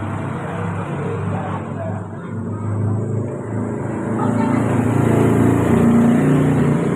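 A motor vehicle's engine running close by, its low hum swelling from about four seconds in and easing near the end.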